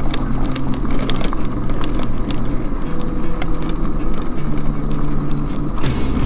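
Tyres rolling over a gravel road with crunching and rattling clicks, under background music with held low notes.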